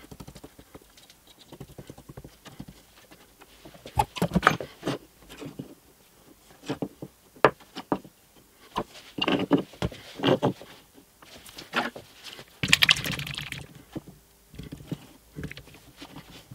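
Film-faced plywood parts knocking and clacking against each other and the workbench as they are handled, glued and pressed together. A longer rubbing or scraping noise comes about three-quarters of the way through.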